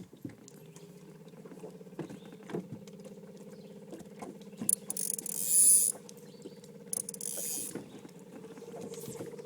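Fishing reel being cranked steadily: a whir with fast clicking that starts just after the beginning and keeps going. Two short hissing bursts cut in about halfway through and again near 7 seconds.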